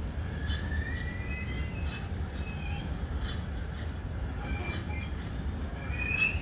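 Container freight train wagons rolling past with a steady low rumble. The wheels give short high-pitched squeals several times, with a few sharp clicks.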